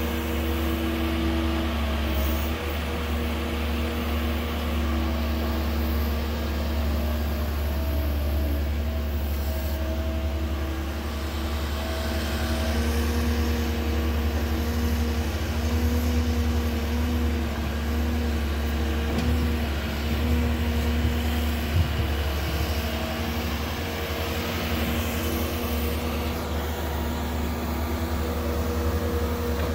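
Caterpillar 308 mini excavator's diesel engine running steadily under load as it digs and swings dirt, a constant low drone with a few steady tones over it and a single light knock about three quarters of the way through.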